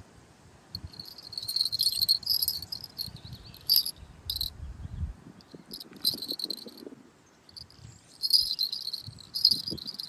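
Pair of small metal jingle bells on a clip-on fishing bite alarm ringing in several short, high jingling bursts, with soft handling rustle beneath in the first half.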